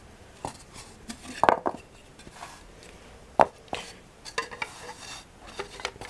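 Hard plastic vacuum cleaner attachments, the extension wand, hose and tools of a Hoover upright, being handled and fitted together: a scattering of separate knocks and clicks, the loudest about one and a half seconds and three and a half seconds in.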